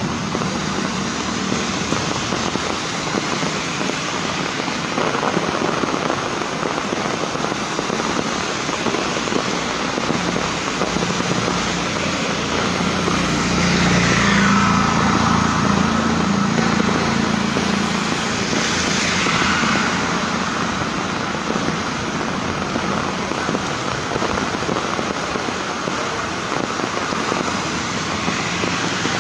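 Heavy rain falling on a wet street, a dense steady hiss. Twice near the middle, a vehicle swishes past on the flooded road, its tyre spray and engine rising and fading.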